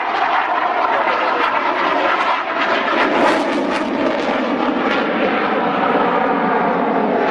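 Saab JAS 39 Gripen fighter's single jet engine, loud and steady in a display manoeuvre.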